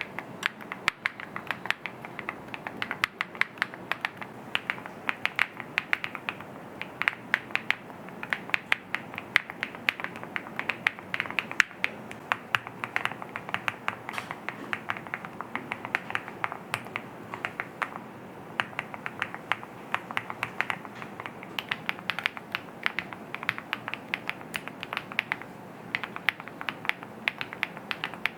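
Continuous fast typing on a TacWorks TAC-K1 65% aluminium gasket-mount mechanical keyboard, a steady stream of keystroke clicks, several a second.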